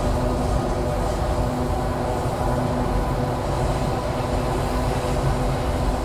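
ER2 electric multiple unit train running at speed, heard from inside the carriage: a steady low rumble of the wheels on the rails with a steady hum of several held tones over it.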